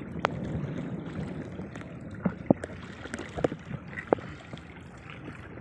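Water sloshing and splashing around a small boat's hull on choppy sea, with scattered sharp knocks and clicks from the boat.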